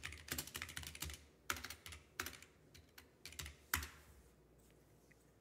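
Typing on a computer keyboard: an uneven run of keystrokes that ends with one harder stroke nearly four seconds in.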